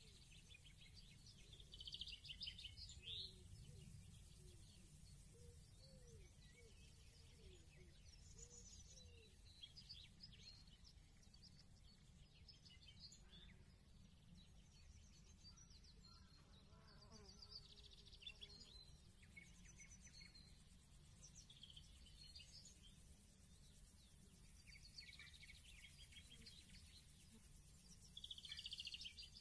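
Faint outdoor garden ambience: a low steady background rumble with scattered high chirps and buzzy trills, loudest about two seconds in and again near the end.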